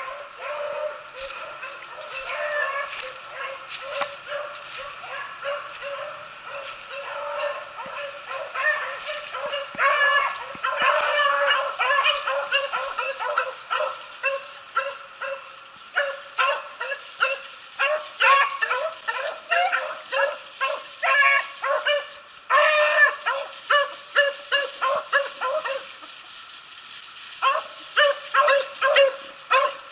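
Several hunting beagles baying and yelping in a rapid, overlapping chorus, the pack giving tongue as it runs a rabbit trail. The calls ease off briefly a few seconds before the end, then come back louder.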